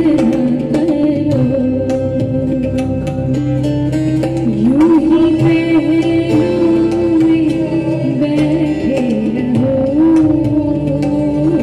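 Live ghazal music from a small Indian ensemble: a sliding, ornamented melody line carries on over regular tabla strokes, with acoustic guitar and keyboard filling in underneath.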